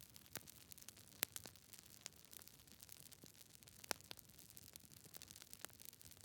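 Wood fire crackling: a faint steady hiss with irregular small snaps and pops, two louder pops about a second in and just before four seconds.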